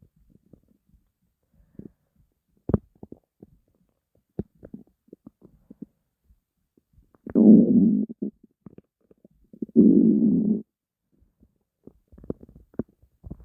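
A hungry person's stomach growling: scattered small gurgles and clicks, then two loud rumbles of about a second each, around seven and ten seconds in.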